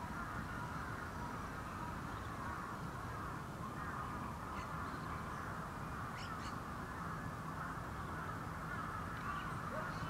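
Steady chatter of many birds calling at once, with a few short, higher calls about halfway through.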